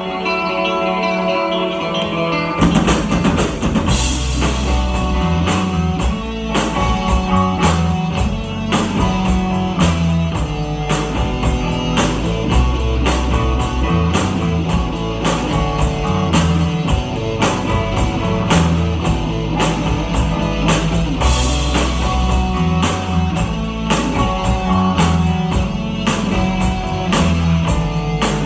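Rock band playing an instrumental passage: guitar alone at first, then the drum kit and low bass notes come in about two and a half seconds in with a steady beat.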